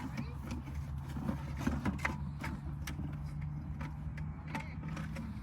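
Light clicks and knocks of small gear being handled, over a steady low engine hum.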